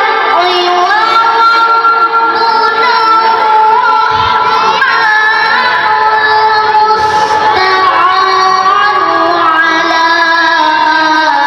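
A boy qori reciting the Qur'an in the melodic tilawah style, his high voice holding long notes that bend and turn in ornamented glides from one to the next.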